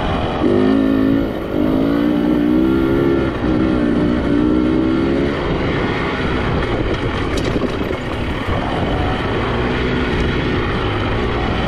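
Motorcycle engine running while riding, its pitch wavering up and down with the throttle over the first five seconds or so, then settling back under a steady rush of noise.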